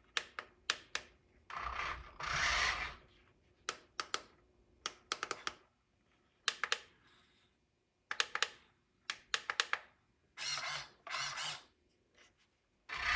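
Scattered sharp plastic clicks from an RC transmitter's switches and controls, with a few short mechanical whirs of about a second each from the RC dump truck's steering servo moving the front wheels.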